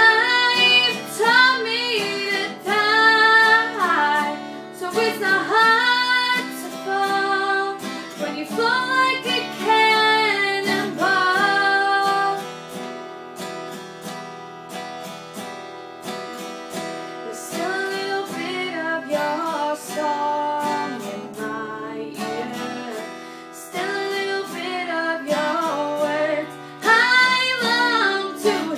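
A woman singing while strumming an acoustic guitar. The passage goes softer in the middle and builds up again near the end.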